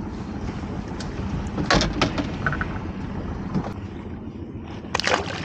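Steady low rumble of wind and water around a small open boat, with a sharp knock about two seconds in and a short clatter of knocks near the end.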